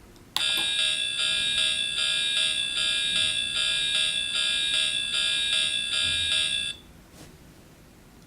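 Electronic train sound effect from the KP-SND42 four-sound kit: a steady, buzzing, bell-like ringing tone with a fast even pulse. It starts suddenly and cuts off abruptly after about six seconds.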